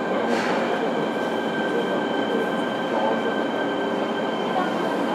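JR Kyushu 103 series (1500 subseries) motor car MoHa 103-1510 running, heard from inside the car: a steady rumble of wheels and traction gear with a steady high whine over it. There is a brief hiss about a third of a second in.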